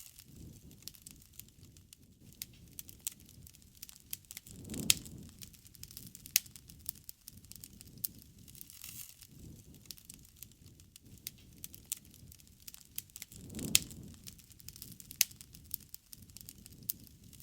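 Wood fire crackling, with sharp pops and snaps scattered throughout over a low rumble of burning. The fire surges twice with a louder pop, about five seconds in and again about nine seconds later.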